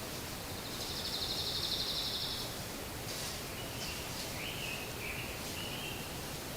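Small songbirds calling in woodland: a fast, dry, high trill lasting about two seconds, then several short whistled notes a little lower in pitch, over a steady background hiss.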